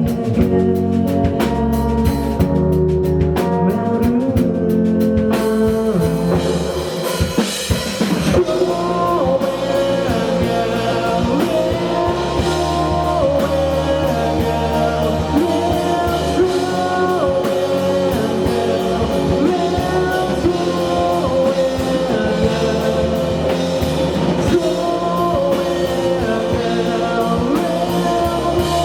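Indie rock band playing live: drum kit, guitars and bass, with singing. About six seconds in, the steady drum hitting gives way to a fuller passage of held, bending guitar and vocal lines.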